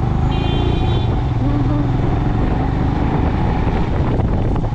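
Motorcycle engine running steadily at low road speed, heard from the bike, with a short horn toot about half a second in. Wind buffets the microphone near the end.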